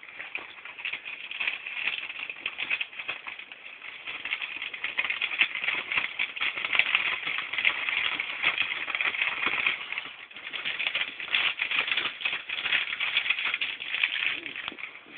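Crinkling and rustling of a thin white sheet being handled, a dense, continuous run of small crackles that dips briefly about ten seconds in.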